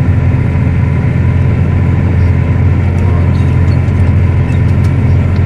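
Claas Axion tractor's diesel engine running steadily under load while pulling a disc harrow, heard from inside the cab as an even low drone.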